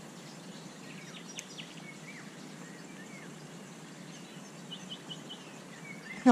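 Steady outdoor background hiss with faint, scattered bird chirps and a quick run of about four short notes about five seconds in. A brief loud sound comes right at the end.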